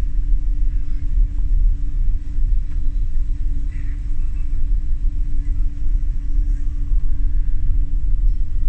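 Ferry's engines running, a steady low rumble with a constant hum.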